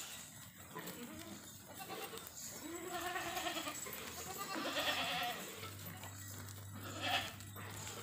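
Herd of goats bleating, several overlapping calls, the loudest about halfway through and another short one near the end.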